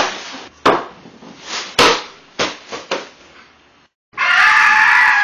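A run of about six sharp hits or smacks over three seconds, then a moment of dead silence before music with long held notes cuts in about four seconds in.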